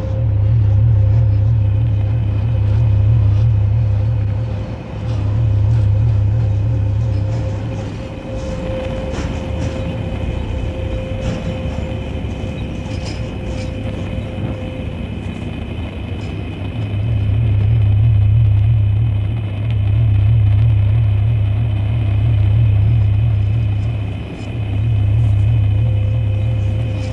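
Dark ambient drone: a deep rumble swells and fades in slow waves every few seconds, easing off for several seconds in the middle, under a steady hum and higher sustained tones over a hiss.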